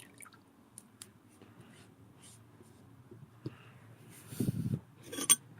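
Light clicks and taps of handling a wet sharpening stone and blade, then near the end two short rubbing strokes of a steel blade on the stone.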